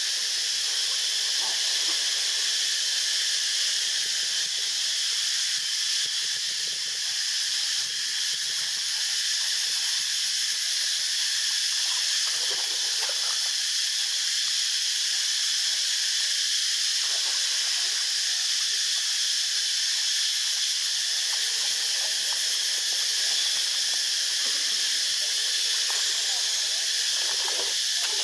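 A loud, steady high-pitched hiss that does not change, with faint scattered rustles and knocks underneath.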